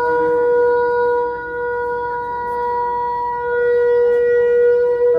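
Wind instruments holding a long, steady chord, with one main note sustained throughout and the harmony shifting to a new note near the end.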